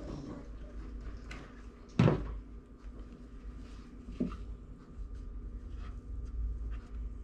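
Crafting tools and materials being handled on a tabletop: one sharp knock about two seconds in, a softer knock about two seconds later, and light clicks and rustling in between.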